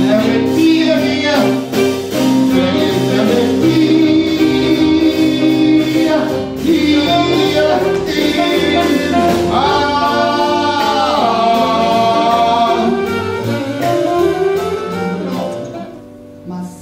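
Musical theatre number: a band plays a show tune with singing, cutting off abruptly near the end.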